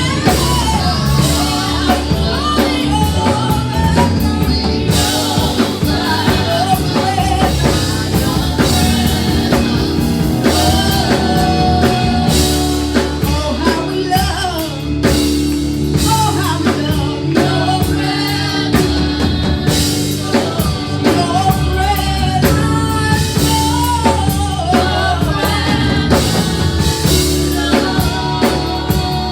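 Gospel worship song: singing over a band with drum kit and bass.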